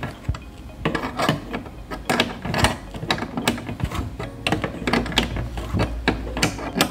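Quick, irregular metallic clicks and ticks of a 14 mm wrench tightening the bolt on a welding inverter's cable socket terminal.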